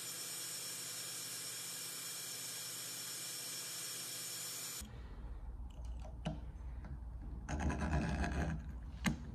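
Steady machine hum and hiss for about the first half. Then it cuts to a hand deburring tool scraping the edges of a welded steel clamp held in a bench vise, in irregular strokes with small clicks.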